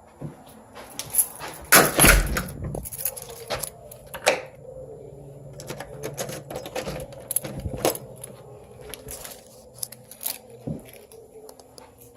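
Scattered knocks and clicks at irregular moments, the loudest about two seconds in, over a faint steady hum.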